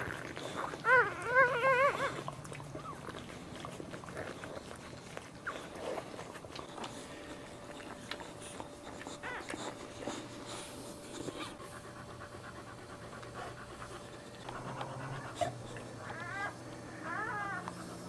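Newborn boxer puppies crying in short, high, wavering squeals, a run of them about a second in and more near the end. In between, the boxer mother pants quietly.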